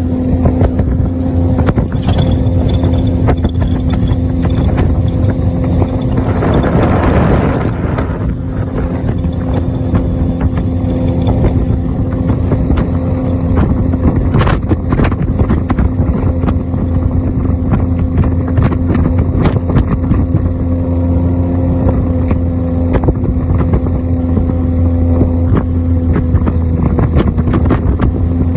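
Jet boat engine running steadily at speed with an even, unchanging drone. A rushing burst of noise rises over it for a couple of seconds about six seconds in.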